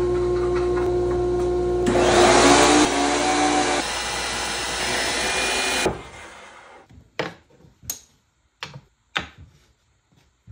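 DeWalt benchtop thickness planer running. About two seconds in, a board feeds through and the cutterhead bites for about two seconds, pulling the motor's note down and making it louder. It then runs free until the sound cuts off, followed by a few short, sharp knocks of wood being handled.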